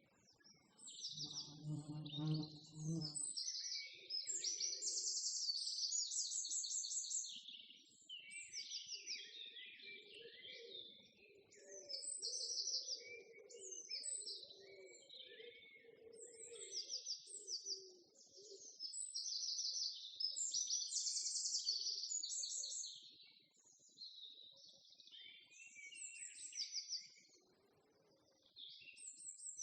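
Several songbirds singing, with repeated rapid trilled phrases and chirps. About a second in, a low pitched hum lasts a second and a half.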